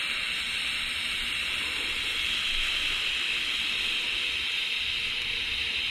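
TIG welding arc on a swing arm, a steady unbroken hiss.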